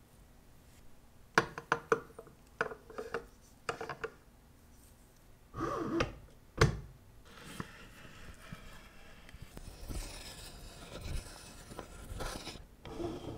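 Clicks and knocks from a watchmaker's bench case press and case-back opener being handled and set up: a quick run of clicks in the first few seconds and two louder knocks about halfway, then quieter scraping and handling.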